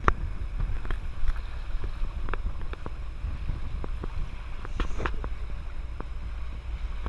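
A boat running through choppy sea: a steady low rumble of engine and wind buffeting the microphone, with scattered sharp knocks and clicks, about nine of them.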